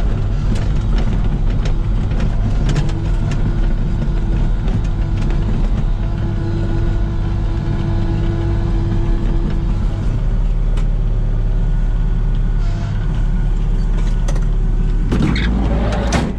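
Komatsu PC16 mini excavator's diesel engine running steadily as the machine travels over bumpy ground, with clicks and rattles throughout. A louder rushing noise comes about a second before the end.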